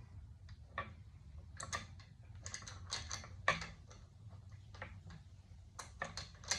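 Lug bolts being threaded by hand into a BMW 340ix wheel hub: irregular small metallic clicks and ticks, a few a second.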